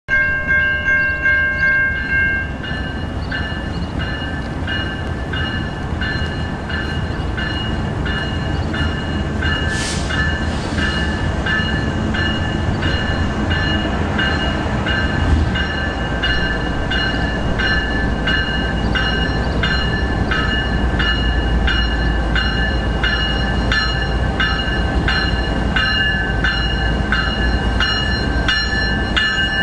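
Freight train's diesel locomotive street running: its horn chord sounds for the first two seconds, then a bell rings about twice a second. The low engine rumble grows as the locomotive draws close.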